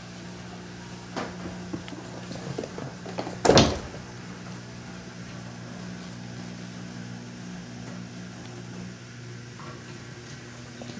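A steady low household hum with a few light knocks, and a single loud, sharp thump about three and a half seconds in.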